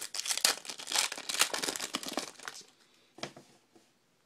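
A trading card pack's wrapper being crinkled and torn open, a dense crackling for about two and a half seconds, then one short crackle about three seconds in.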